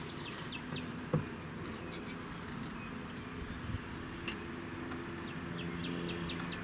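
Small birds chirping, with short high chirps scattered throughout over a low steady hum. A sharp knock sounds about a second in from the fish finder's gimbal mounting bracket being handled and fitted together.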